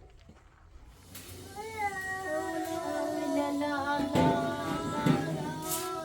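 A voice singing a slow, wavering tune with long held notes, starting about a second in, with a few short knocks in the background.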